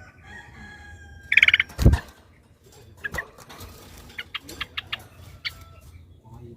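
Yellow-vented bulbul calls: a loud burst of bubbling chatter about a second in, then scattered short chirps. A rooster crows faintly at the start, and there is a loud thump about two seconds in.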